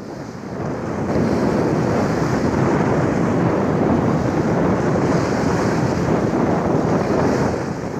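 Wind buffeting the microphone: a loud, steady rushing that builds about a second in and eases off near the end.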